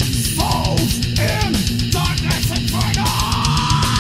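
Thrash/death metal band recording: fast drumming with rapid bass-drum strokes under distorted guitars. High notes slide up and down in pitch above them, and from about three seconds in a long arching note is held.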